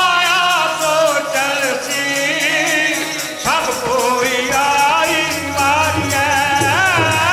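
Sikh keertan: Gurbani sung with gliding melodic lines over a steady harmonium accompaniment, kept in time by the jingling beat of a chimta.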